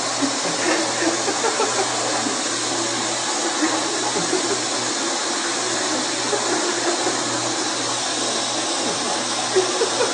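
Toilet flushing with a long, steady rushing of water.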